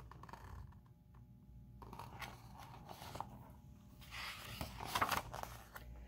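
Page of a large hardcover picture book being turned and the book handled: soft paper rustles and scrapes, loudest about five seconds in.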